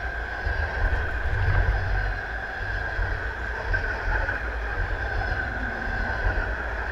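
Electric multiple-unit commuter train passing close by: a steady high whine over a heavy low rumble of wheels on the rails, loudest a second or two in.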